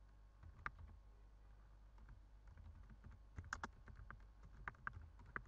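Faint typing on a computer keyboard: scattered single keystrokes, then quicker runs of keys from about three and a half seconds in, over a steady low hum.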